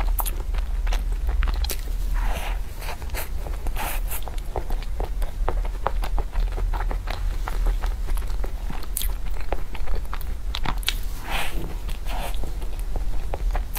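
Close-miked chewing and wet mouth smacks from eating soft chocolate sponge cake, a dense run of small sharp clicks with a few longer breathy smears, over a steady low hum.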